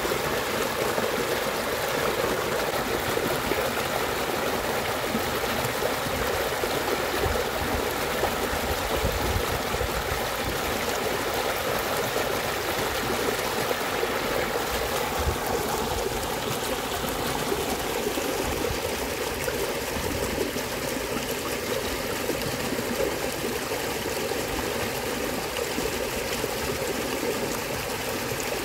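Small muddy stream running steadily over dirt, an even trickling and splashing of flowing water.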